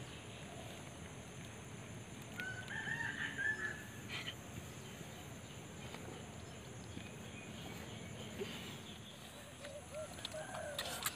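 A rooster crowing once, faintly, about two and a half seconds in, over a quiet outdoor background, with a few small clicks.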